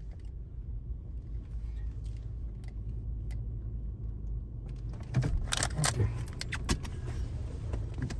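Automatic car-wash blower dryers running overhead, heard from inside the car as a steady low rumble. From about five seconds in, a run of sharp clicks and jangles from the ignition keys being handled.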